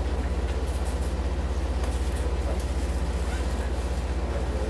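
Steady low hum with a fast, even pulse, heard from inside a Taiwan Railway EMU700 electric train car standing at a station: the train's onboard equipment running while it is stopped.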